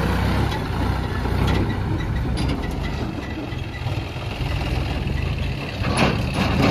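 John Deere 5105 tractor's three-cylinder diesel engine running as it tows an empty trailer over rutted dirt, with a few short knocks and a louder clatter near the end.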